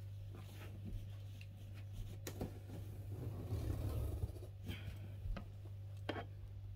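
Cardboard packaging of a printer box being handled and opened: scattered light clicks and taps, with a longer stretch of scraping and rustling about three to four and a half seconds in. A faint steady low hum sits underneath.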